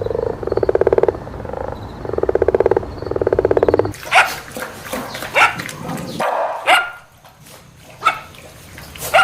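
A cat purring in rhythmic pulses, about one a second, then, about four seconds in, a dog barking in sharp single barks roughly once a second.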